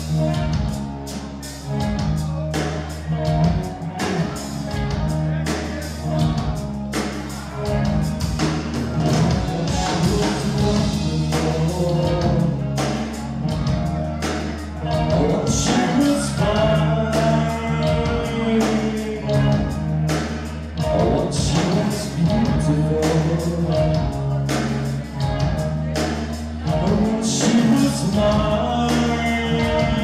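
Heavy metal band playing live: electric guitar, bass guitar and a drum kit, with regular drum and cymbal hits over a repeating bass line.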